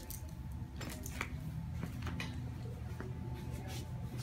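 Faint footsteps and handling scuffs, a few scattered clicks, over a low steady room hum.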